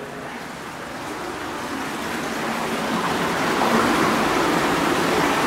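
Water rushing or sloshing in a flooded tunnel: an even hiss that grows steadily louder.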